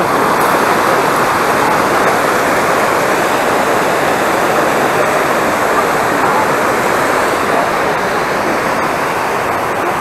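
Rushing water of a rocky mountain stream and its waterfalls: a loud, steady rush.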